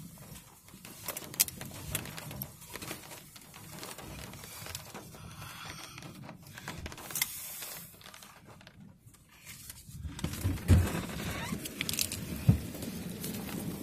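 Rustling and crackling handling noise with scattered sharp clicks, from a microphone rubbing against whatever is covering the camera. From about ten seconds in the handling grows louder, with a few dull thumps.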